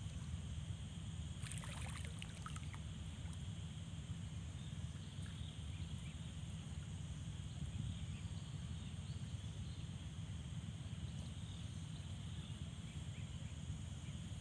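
Steady low outdoor rumble of wind and moving water, with a steady high insect drone over it. A brief cluster of light clicks and rattles comes about two seconds in.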